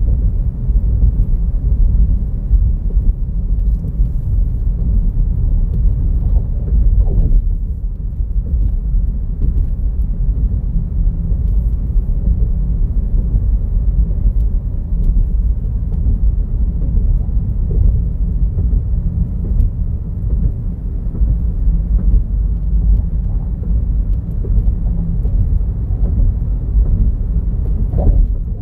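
Steady low rumble of a car driving at speed, road and engine noise heard from inside the car, with a brief rising sound about seven seconds in and again near the end.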